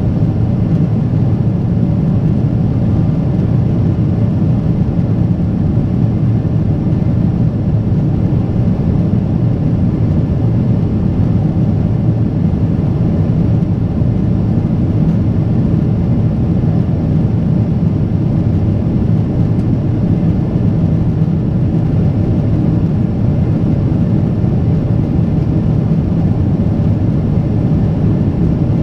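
Boeing 777-300ER's GE90 engines and airflow heard inside the passenger cabin: a loud, steady low rumble.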